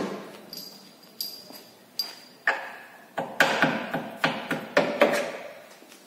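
Rubber mallet striking a car's front lower control arm in a series of blows, about one every half second, tapping it into alignment in the subframe.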